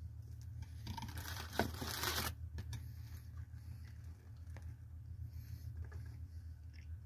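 A man quietly chewing a bite of mint and chocolate fudge, over a steady low hum, with a brief rustle about a second in that lasts just over a second.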